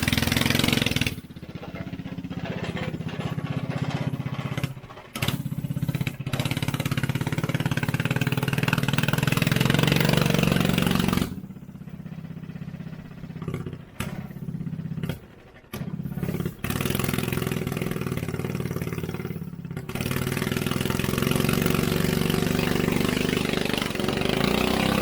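212cc single-cylinder four-stroke engine of a motorized Power Wheels Mustang go-kart running without a muffler, revving up and falling back as it is driven. The sound drops away abruptly and comes back several times in the second half.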